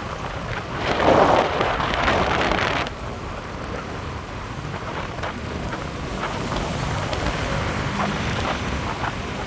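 Wind buffeting the microphone of a moving vehicle, over a steady road and engine rumble. The wind is strongest for about two seconds near the start, then settles to a lower, steady rush.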